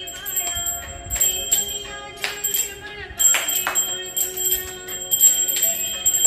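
Brass puja hand bell (ghanti) rung over and over during aarti, its high ringing tones held between repeated strikes, with devotional music behind it.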